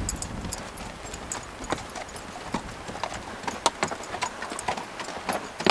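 Horse hooves clopping on the ground at a walk, a few uneven clops each second.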